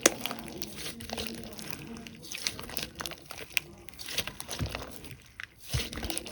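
Slime being squished and poked by hand, giving irregular crackling pops and clicks.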